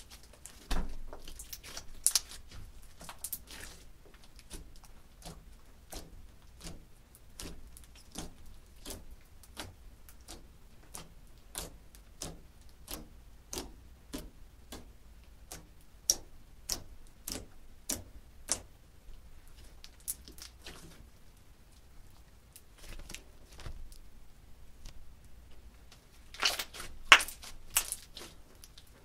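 Clear slime being poked, pressed and folded by hand, giving a string of sharp little clicks and pops, about two a second, with louder clusters of pops a second or two in and near the end.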